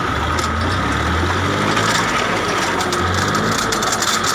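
Massey tractor's engine running under load, driving a post hole digger auger through hard, stony soil. Gritty crackling of stones and earth grows from about halfway through.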